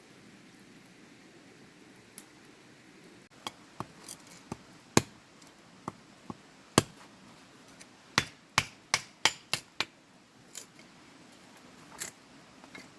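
A series of sharp clicks and knocks, irregular at first, then a quicker run of about four a second near the middle.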